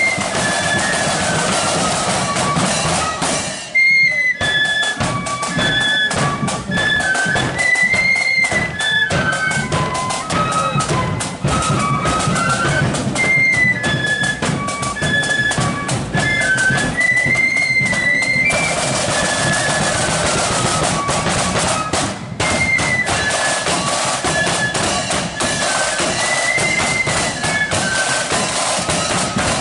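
Marching flute band playing a tune on flutes over snare and bass drums, with a short break in the melody about four seconds in.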